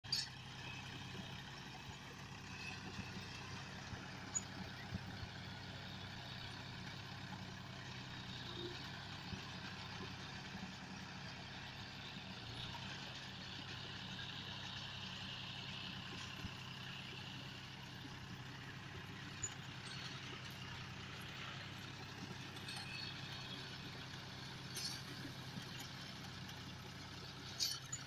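John Deere tractor's diesel engine running steadily as it pulls a tractor-driven round baler that picks up and rolls paddy straw, with a handful of sharp clicks from the machinery.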